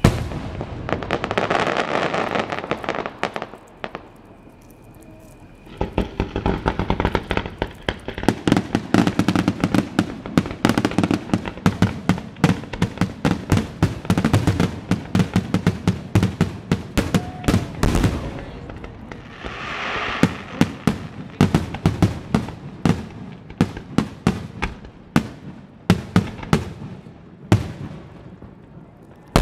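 Aerial fireworks shells bursting: a loud bang at the start followed by crackling, a short lull about four seconds in, then a long run of rapid, overlapping bangs and crackles.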